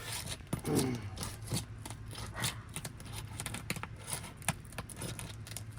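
3-tab asphalt shingles crackling and tearing in a run of small sharp snaps as their sealant bond is broken with a roof snake. The sealant is pulling granules and mat off the shingle above, the mat transfer that keeps the shingle from resealing.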